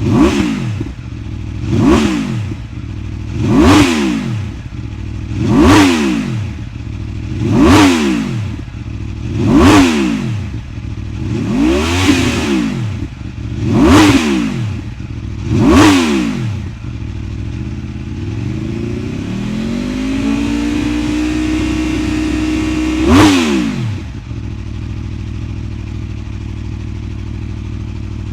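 Aprilia RSV4's V4 engine being revved in the stand: nine quick throttle blips about two seconds apart, then the revs climb and are held for a few seconds. After one more blip it drops back to a steady idle.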